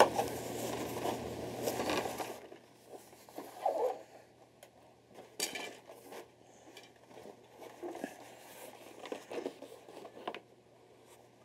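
Rustling followed by scattered light clicks and taps as small model-airplane parts and packaging are handled.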